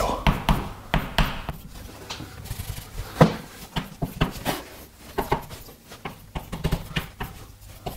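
Pen writing on a surface: irregular light taps and short scratches as equations are written out.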